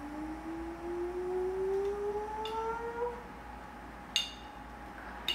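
A person humming one long note that rises slowly in pitch and stops about three seconds in. Then come two short, ringing glass clinks about a second apart, from the honey jar as it is tapped.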